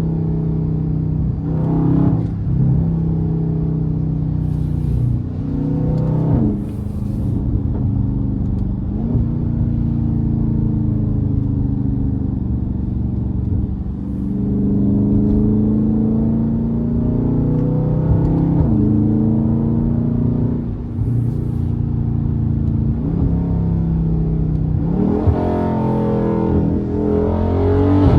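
Dodge Scat Pack's 392 HEMI V8 accelerating and revving, its pitch climbing and then dropping back at each upshift, several times over.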